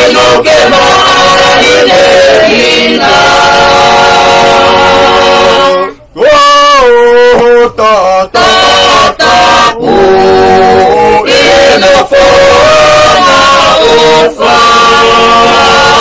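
A family group of men, women and children singing a hymn together without instruments, in long held notes. The singing breaks off briefly about six seconds in, then goes on.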